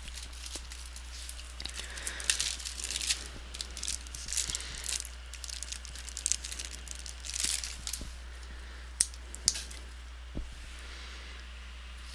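Plastic ziplock bag of small screws crinkling and rustling in irregular bursts as it is handled and opened, with a couple of sharp clicks about nine seconds in.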